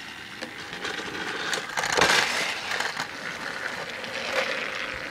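Plastic clicking and rattling from a battery-powered TrackMaster Percy toy engine being handled and set on its plastic track, loudest about two seconds in. The toy's electric motor then runs.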